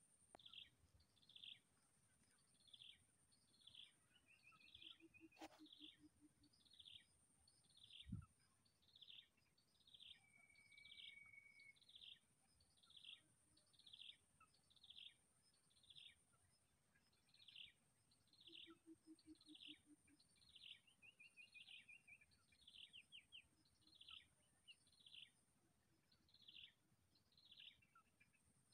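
Faint bird calls: a short, high, downward-sliding note repeated about once a second, over a steady high-pitched tone. A brief low thump comes about eight seconds in.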